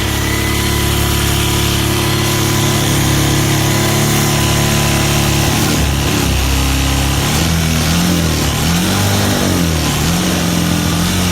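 Small single-cylinder 110cc ATV engine running on propane fed through a vaporizer, holding a steady speed at first. About halfway through, its speed starts rising and falling several times.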